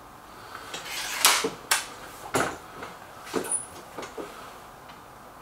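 Hatsan 900X break-barrel air rifle being handled: a run of about half a dozen sharp mechanical clunks and clicks over some three seconds, the loudest about a second in.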